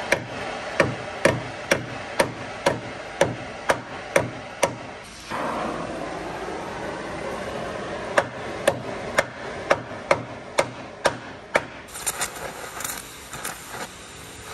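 Hammer blows on the steel truck frame, about two a second, pounding the torch-heated steering-box mount back into shape. A steady hiss of the oxy-acetylene torch fills a pause from about five to eight seconds in. Near the end the blows turn lighter and quicker.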